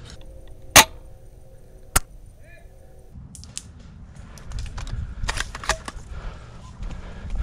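Two sharp airsoft gun shots about a second apart, the first the louder. Then, a few seconds in, dry reeds and twigs crackle and rustle as someone pushes through brush.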